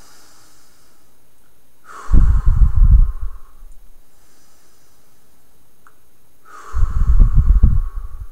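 A man's slow, deep breaths, twice: a quiet inhale, then a loud exhale of about a second, about two seconds in and again near the end, the breath blowing on the microphone as a rumble.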